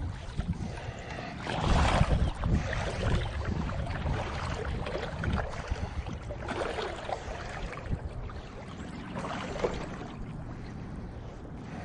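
River water sloshing around hip waders as an angler wades through the current. The sloshing comes in uneven surges and is loudest about two seconds in.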